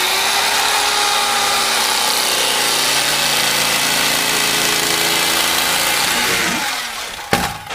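Electric knife cutting seat foam: the motor whirs up to speed, runs steadily while slicing, and winds down near the end, followed by a short knock.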